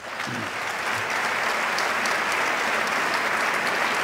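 Applause from a large crowd of House members, building over the first second and then holding steady.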